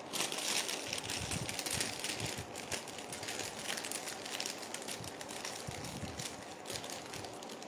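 Faint rustling and small irregular ticks of jewellery and its packaging being handled, over a steady hiss.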